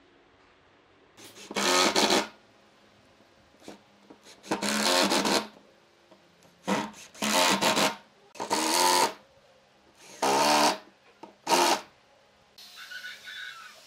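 Makita cordless impact driver driving long wood screws into a wooden chair frame, in six short bursts of about a second or less each. A fainter, steadier noise follows near the end.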